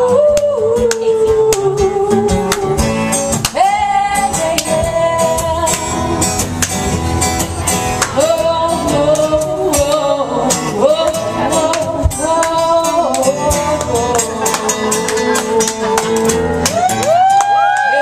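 Live singing with guitar strumming. Near the end, audience whoops and cheers rise over the closing notes.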